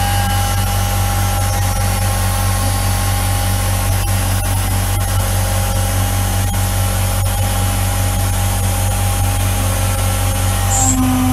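CNC router spindle running at 10,000 rpm, its 6 mm four-flute carbide end mill cutting a full-width slot through aluminium: a steady machining whine with several held tones over a noise haze. Near the end the tone changes as a new lower tone comes in.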